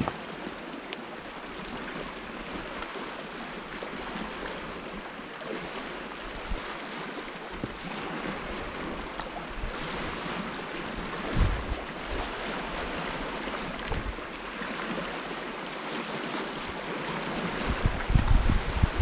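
Small sea waves washing and splashing against a rocky shore, a steady wash of water noise. Now and then, about the middle and near the end, wind rumbles on the microphone.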